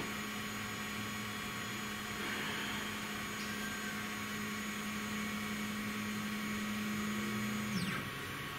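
3018 desktop CNC router's X-axis stepper motor driving the carriage in a steady jog, a constant whine that drops in pitch and stops about eight seconds in as the carriage arrives. This is the 100 mm return move of a steps-per-mm calibration.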